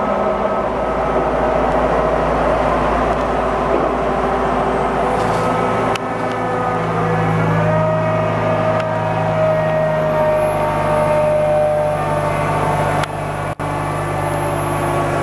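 Liebherr LTM 1100-5.2 mobile crane's diesel engine running steadily, its speed rising a little about six to seven seconds in. The sound briefly cuts out near the end.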